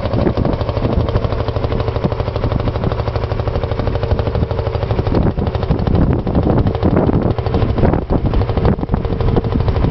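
1949 Field Marshall Series 3 tractor's single-cylinder two-stroke diesel engine running under load while ploughing, with a steady rapid beat.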